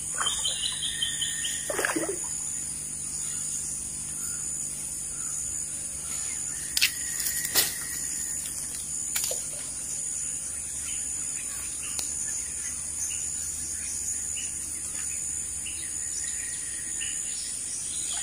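Wild birds calling over a steady, high insect buzz, with a bird call at the start and a few sharp clicks near the middle.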